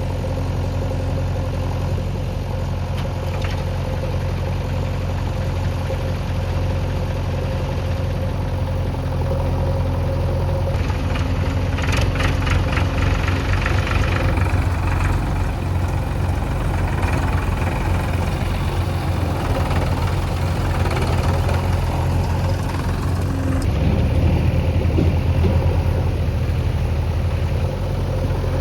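Heavy-machinery diesel engine running steadily with a low hum, with a short run of metallic clattering about twelve seconds in.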